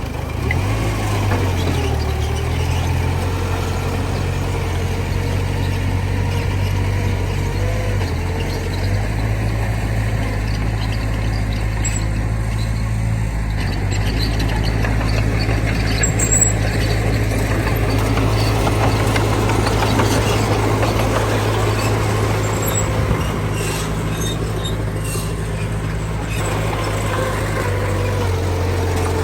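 Heavy diesel earthmoving machinery running steadily, its low engine note shifting up and down a few times as the engine speed changes, with a brief high squeak about sixteen seconds in.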